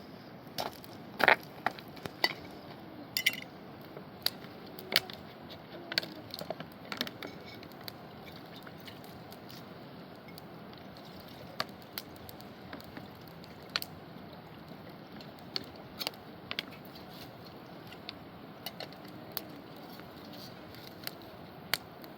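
Wood fire crackling: irregular sharp snaps and pops, denser and louder in the first few seconds, over a steady rushing background.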